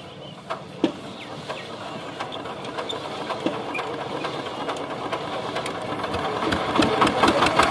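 Single-cylinder diesel engine of a walk-behind power tiller being hand-cranked: a rhythmic mechanical clatter that gets faster and louder, turning into dense, even engine beats in the last second or so as it catches.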